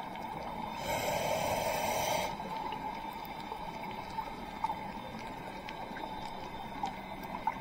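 Underwater sound of a scuba diver breathing out: regulator exhaust bubbles rush for about a second and a half near the start, over a steady underwater hiss with faint scattered clicks.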